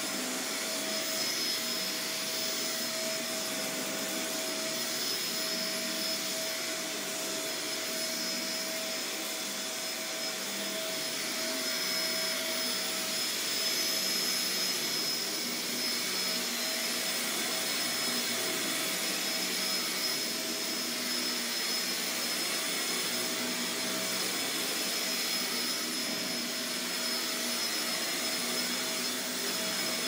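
Shark Navigator Swivel upright vacuum cleaner running steadily as it is pushed over carpet, a constant motor noise with a steady high whine.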